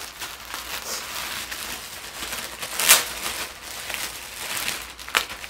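Clear plastic poly bags crinkling and rustling as they are handled, with a louder crackle about three seconds in and a short sharp click near the end.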